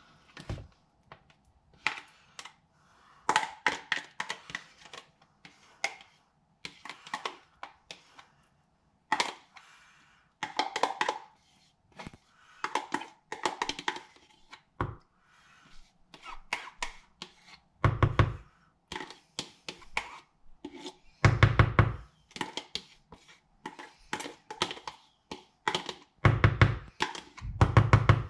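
Metal spoon scraping thick Greek yogurt out of a plastic tub and clicking against its sides, with several clusters of rapid, heavier knocks as the spoon is tapped against the plastic containers.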